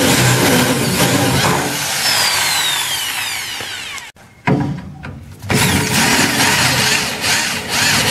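Cordless drill boring out spot welds in the steel engine crossmember with an oversize bit ground to an aggressive cutting angle. It runs under load with a high whine that slides down in pitch, stops abruptly about four seconds in, and starts drilling again about a second and a half later.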